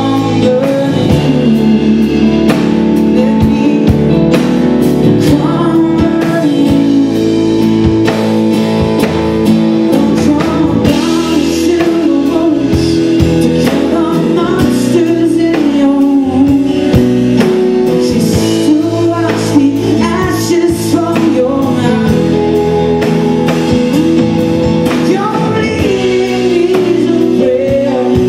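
Live band playing with acoustic guitar, electric guitar, drum kit and keyboard, under a male lead vocal.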